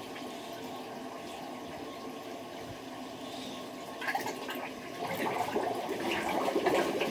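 Water sloshing and trickling around a boat on a dock boat lift as the lift lowers it. About four seconds in it grows louder, with splashing and small crackles.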